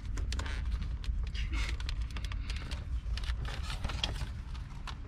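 Plastic interior trim clicking and rustling as the Nissan 350Z's center console panel is worked loose and lifted out around the shifter. There are many short, sharp clicks and a few brief scrapes over a steady low rumble.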